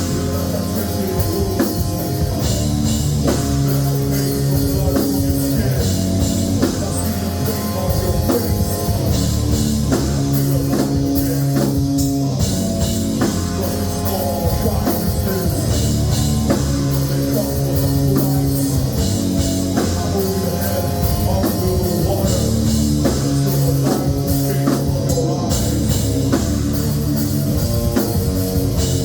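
Metal band playing live: electric guitar and a drum kit, loud and steady.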